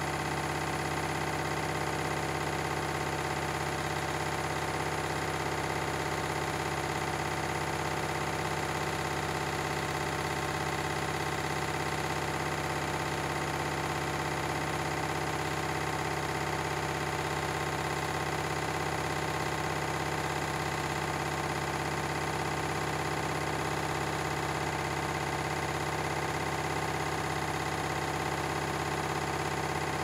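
Candy front-loading washing machine running steadily on its drain-and-spin cycle: a constant motor hum with a steady whine above it, holding the same speed and level throughout.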